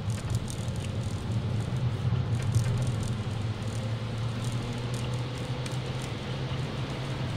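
Car engine and tyre noise heard from inside the cabin while driving on a wet track, a steady low drone. Faint patter and swishes of water and the running windscreen wipers sit on top.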